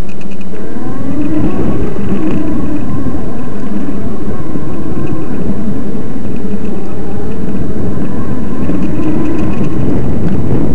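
Electric bicycle's small chain-driven motor whining, rising in pitch as the bike speeds up in the first couple of seconds and then running steadily, under heavy wind buffeting on the microphone.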